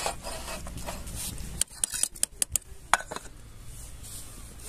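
Metal cutlery clinking against a small camping cook pot as its lid goes on: a quick run of about seven sharp clinks in the middle.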